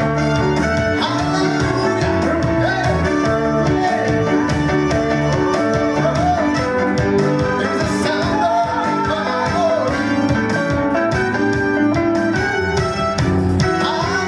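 Gospel song performed by church singers, with voices over guitar and band accompaniment.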